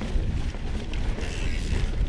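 Mountain bike riding a sandy dirt trail: wind rumble on the microphone, with small rattles and creaks from the bike and tyre noise on the dirt, and a brief higher hiss a little past the middle.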